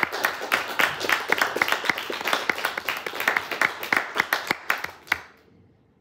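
Audience applauding, with many separate hand claps that die away about five seconds in.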